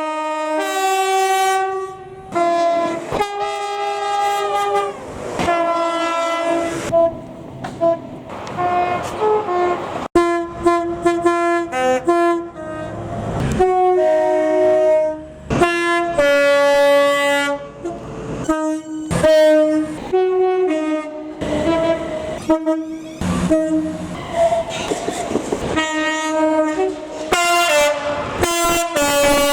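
British train's multi-tone horns sounded over and over in a long sequence of short and long blasts, the notes changing pitch like a played tune.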